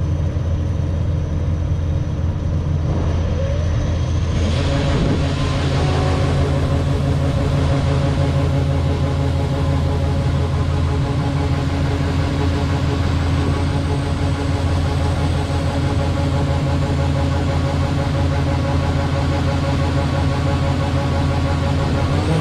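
Heavy engine running steadily with a deep low hum. About four and a half seconds in, a broad rushing noise joins it and carries on.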